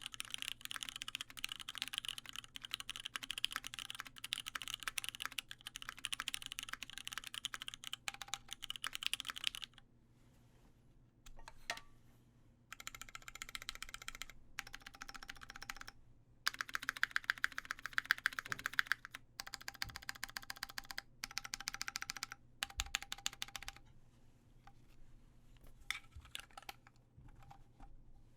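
Typing on a mechanical keyboard with lubed Cherry MX Brown tactile switches, an aluminium plate and CRP Tulip keycaps. A dense run of fast keystrokes stops about ten seconds in, then several shorter bursts of typing follow, thinning to a few scattered keystrokes near the end.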